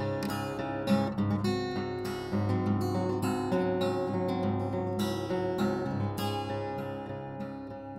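Background music: acoustic guitar strumming and picking, easing off in level near the end.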